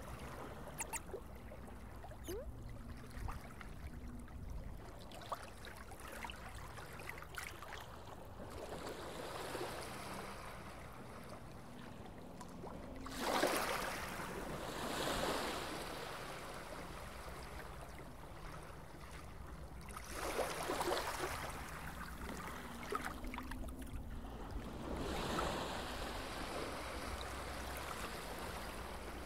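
Underwater ambience: a steady watery rush over a low rumble, with scattered small bubbling pops. It swells louder three times: about halfway through, about two-thirds of the way in, and near the end.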